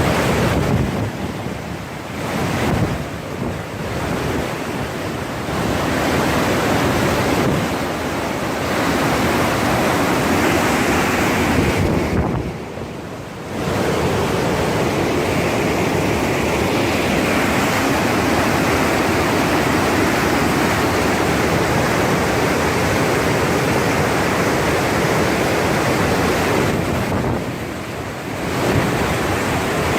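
Steady rush of a waterfall, the falling water's noise dipping briefly about twelve seconds in and again near the end.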